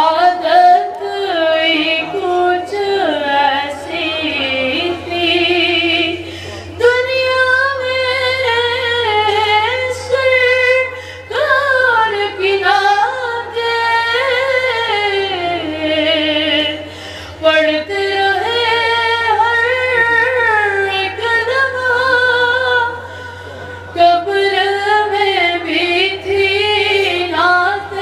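A boy singing a naat solo and unaccompanied, a high voice in long, richly ornamented phrases with sliding pitch, breaking off for short breaths between phrases. A steady low hum lies under the voice.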